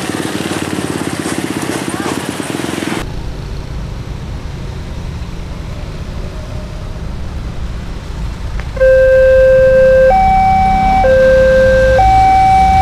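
Level crossing's electronic warning alarm sounding loudly about nine seconds in, a low and a high tone alternating, each held about a second, signalling an approaching train as the red lamps flash. Before it, road traffic with motorcycles passing over the crossing.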